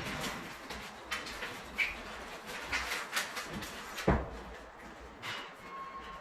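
Scattered clicks and knocks of hand installation work, with one sharper knock about four seconds in.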